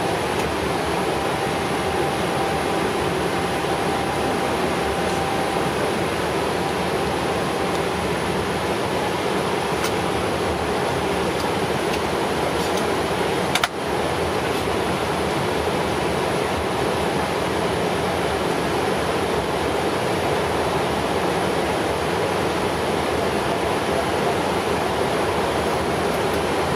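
Steady rushing noise of airflow and engines inside a Boeing 777-300ER flight deck in flight. A single sharp click comes about halfway through.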